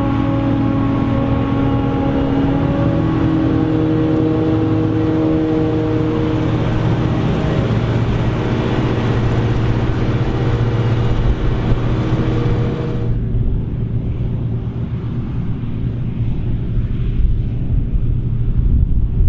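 Krone BigX 700 forage harvester running under load: a heavy engine drone with several steady whining tones from the machine. About 13 seconds in, the sound changes abruptly to a duller, low rumble without the whine.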